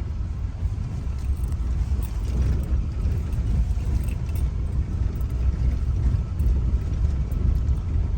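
Car driving along a road, a steady low rumble of engine and tyre noise heard from inside the cabin.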